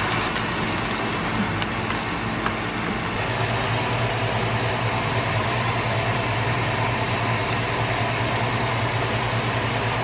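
Food sizzling while it is stir-fried in a nonstick pan on a gas stove: a steady hiss, with a steady low hum underneath.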